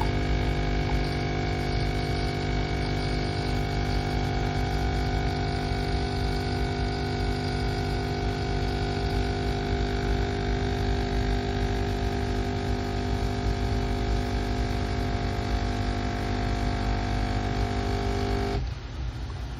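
Nespresso capsule coffee machine brewing, its pump and motor running with a steady loud hum that stops abruptly near the end.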